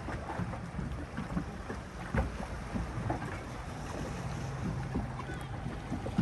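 Tour boat's engine running steadily with a low hum, with wind buffeting the microphone.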